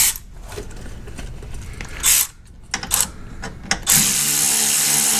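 Cordless ratchet spinning a bolt in through a radiator support skid bracket: a steady motor whine starting about four seconds in. Before it, a few short clatters of the socket and extension being set on the bolt.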